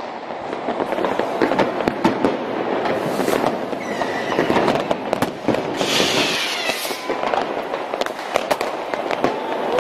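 Many fireworks and firecrackers going off at once: a dense, nonstop crackle of bangs and pops, with a brief hiss about six seconds in.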